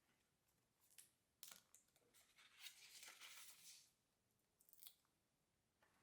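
Very faint paper handling at a journaling desk: a few soft ticks, and about two and a half seconds in a short tearing rustle lasting about a second.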